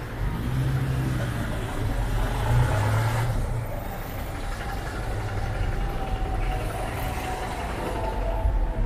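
Street traffic: a vehicle engine running close by over the steady rumble of passing cars, its low hum strongest in the first few seconds.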